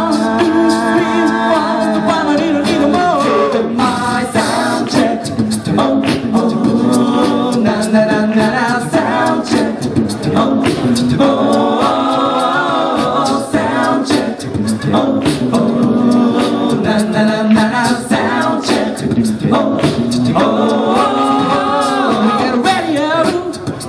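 A cappella vocal group singing a pop song in several-part harmony, with beatboxed percussion keeping the beat underneath.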